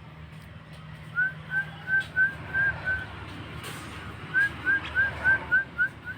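Javan myna (jalak kebo) giving two runs of short, rising whistled notes, about three a second, with a brief pause between the runs.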